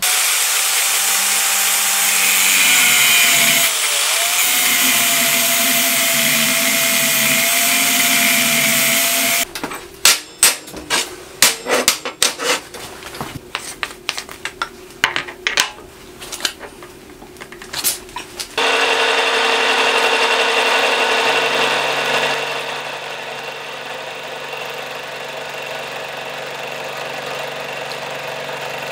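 A power saw cutting through a 4140 steel bar, running steadily and stopping about nine seconds in. Then a stiff brush scrubbing chips off the bar, in irregular scrapes and clicks, followed by a milling machine running steadily as its spinning cutter faces a steel die block.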